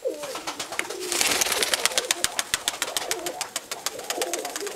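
Nikolaev pigeons cooing, several low warbling coos one after another. From about a second in, a fast even run of sharp clicks, about eight a second, plays over them, opening with a brief hiss.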